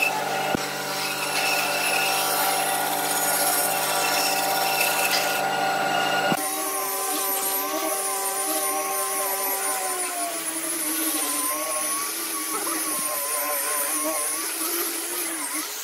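A band saw running as it cuts a curved wooden piece. About six seconds in it switches suddenly to an angle grinder with a sanding disc whining as it sands a board, its pitch wavering with the pressure.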